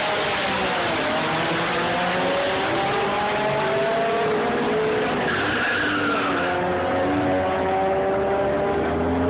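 Two cars accelerating hard down a drag strip, their engines revving up through the gears, the pitch climbing and dropping back at each shift. A deeper engine rumble comes in about halfway through.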